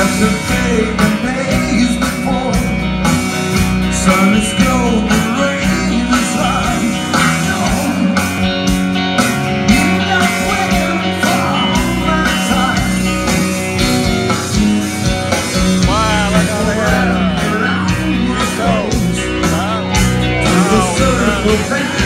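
Live rock band playing through a PA: drum kit, electric guitars and bass with a singer's voice on top.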